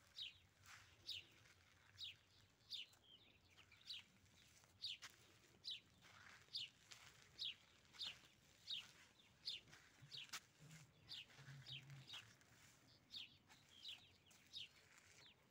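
A small bird calling faintly, a short falling chirp repeated about once a second.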